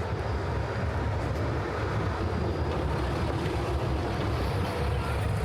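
Steady outdoor city ambience near the waterfront: an even low rumble with a hiss above it, with no single sound standing out.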